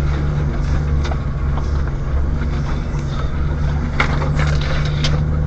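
Vehicle engine running steadily at low revs under load up a steep track, heard from inside the cabin. Brush and blackberry canes scrape and snap against the body, sharpest about four and five seconds in.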